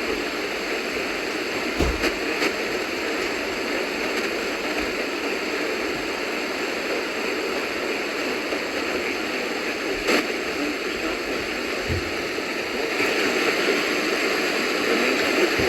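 Steady radio static hiss with a few faint clicks, and no programme audio coming through.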